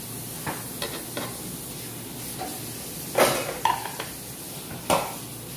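Metal spoon scraping and knocking against a plate and a pan while garnish is spooned onto rice. It makes a few light clinks and scrapes, the loudest about three seconds in, and a sharp click near the end.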